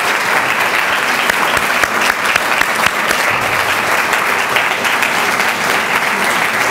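Lecture-hall audience applauding steadily, many people clapping at once.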